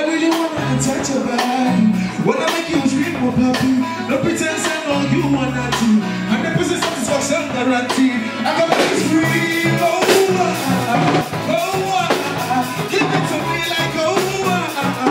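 Live band music: a man singing into a microphone over drums and electric bass guitar, with a steady beat.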